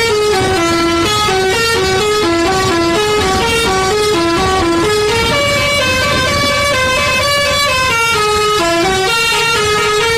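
Indonesian 'telolet' bus horn, a set of multi-tone air horns playing a long, unbroken melody. The notes step up and down a few times a second, with several tones sounding together.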